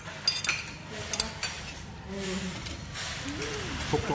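Cutlery clinking against plates and dishes, with several sharp clicks in the first second and a half and a stretch of hiss near the middle. Faint voices in the background.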